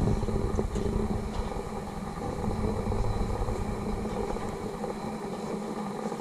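Wind buffeting the microphone as a steady, flickering low rumble, with a few faint clicks.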